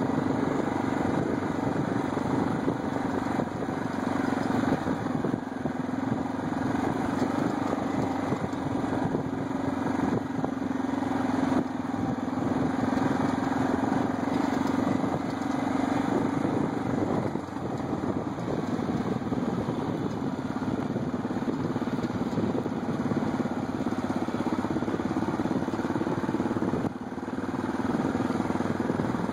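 ATV engines running at a steady trail-riding speed along a dirt track, easing off briefly near the end.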